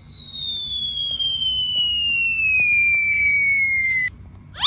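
A cartoon falling-whistle sound effect: one long whistle tone gliding steadily down in pitch for about four seconds, then cutting off suddenly. Just before the end, a quick rising swoosh.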